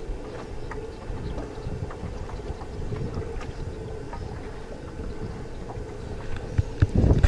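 Wind buffeting the microphone and water lapping against an aluminium boat, with light ticks from a baitcasting reel as it is wound in. A short flurry of louder clicks and knocks comes near the end.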